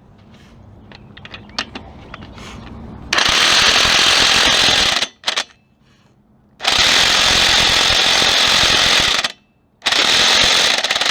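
Impact wrench hammering on the cylinder head bolts of a 3.1L V6, in three long bursts of two to three seconds each that begin about three seconds in, with a few light clicks before them.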